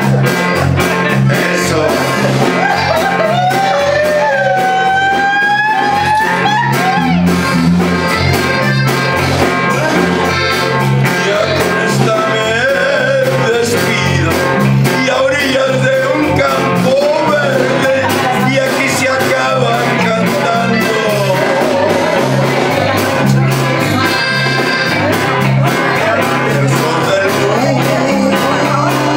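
A man singing through a microphone and PA over amplified backing music with bass and guitar.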